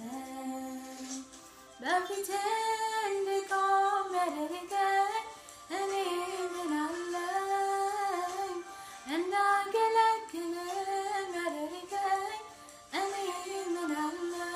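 A woman singing a mezmur, an Ethiopian religious song, in four phrases of held notes with slides between them and short breaks for breath.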